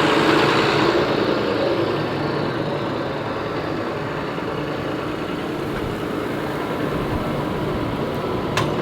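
Large diesel farm machinery engine running steadily, easing off a little over the first couple of seconds as it draws away. A few sharp clicks come near the end.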